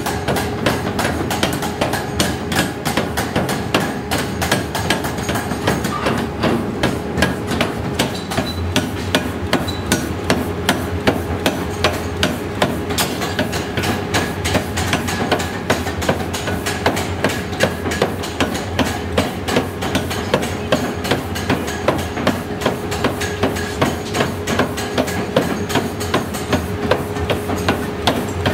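Power hammer striking a red-hot steel truck-axle blank on its anvil in rapid, regular blows, about three a second, while the steel is forged out. A steady machine hum runs underneath.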